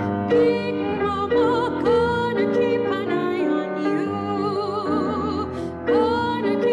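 Music: a singer holding notes with a wide vibrato over a steady accompaniment.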